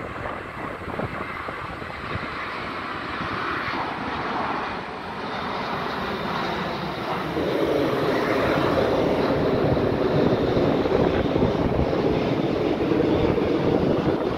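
Boeing 787-9 airliner on approach with its landing gear down, passing low overhead: a steady jet-engine roar that grows louder about halfway through as it comes over, with a thin high whine from the engines.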